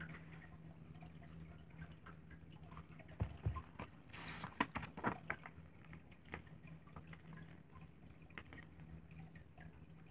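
Faint handling noises of a paperback comic book being held and its pages turned: soft rustles and clicks, with a low thump about three seconds in and a run of sharper clicks a second later, over a steady low hum.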